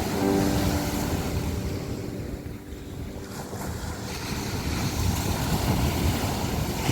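Ocean surf washing with wind rumbling on the microphone; the wash dips a couple of seconds in and swells again. A brief sharp click right at the end.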